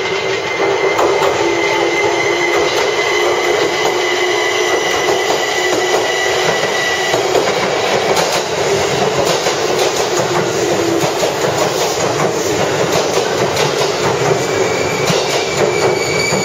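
JR Kyushu 787 series electric limited express running into the platform, its wheels clattering over the rail joints. A thin high squeal fades out about halfway, and fresh high squealing tones come in near the end as the cars slide past.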